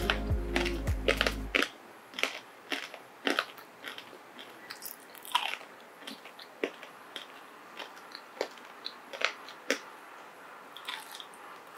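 Background music stops about a second and a half in. Then comes the crisp crunching of a pan-fried shredded sweet potato pancake being bitten and chewed, in irregular crunches about one or two a second.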